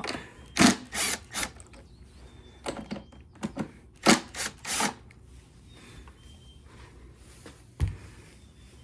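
Hand tools and parts being handled: a run of short sharp clicks and knocks, about ten in the first five seconds and one more near the end.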